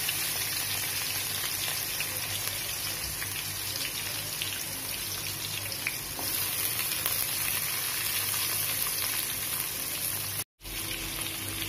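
Sliced shallots frying in hot oil in a metal kadai: a steady sizzle with light crackling. The sound cuts out for a split second near the end.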